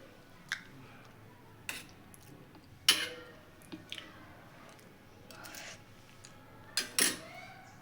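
A spoon clinking against a bowl of kadhi in a few sharp, separate clinks, the loudest about three seconds in and two close together near the end.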